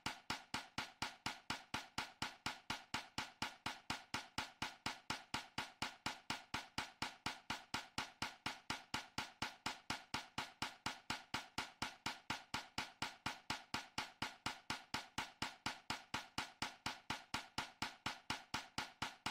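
A rapid, evenly spaced run of sharp ticking clicks, about four or five a second, like a percussion loop in a background track.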